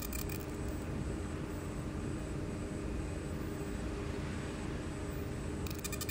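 20 W fiber laser marking machine: the high-pitched crackling buzz of the beam engraving the BiTe stops about half a second in, leaving only the machine's steady fan hum, and starts again near the end.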